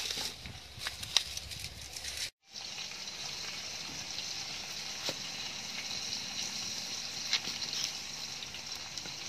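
Wood fire burning in a small brick stove under a covered pot: a steady hiss with scattered sharp crackles, cutting out briefly about two seconds in.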